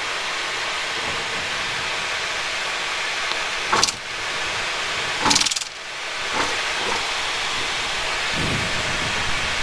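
Steady cockpit hiss of a Boeing 737-800 at taxi speed, the air-conditioning airflow and idling engines blended into one even noise. Short sharp clicks come about four and five and a half seconds in.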